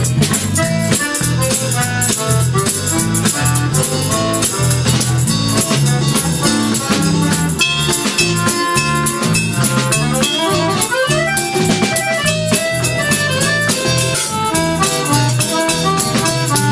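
Small live band playing an instrumental break with no vocals: drum kit, electric and acoustic guitars and accordion. A rising run of notes comes about two-thirds of the way through.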